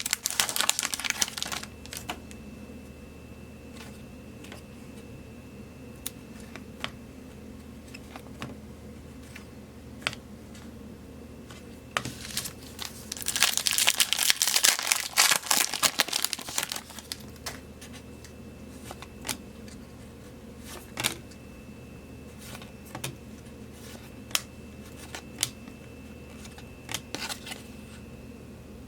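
Foil trading-card pack wrappers crinkling, a short burst at the start and a longer one for a few seconds midway. In between, scattered soft clicks of cards being flipped through one by one.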